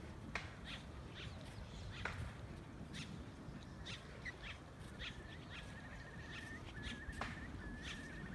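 Birds calling over a low background rumble: scattered short, sharp calls throughout, and from about five seconds in a bird repeating a dry, pulsed trill on one steady pitch about four times.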